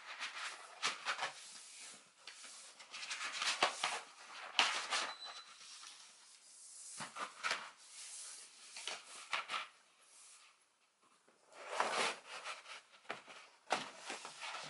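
Paper and board rustling and scraping as a poster and its mat are smoothed and pressed by hand into a picture frame, in uneven bursts with a few light taps.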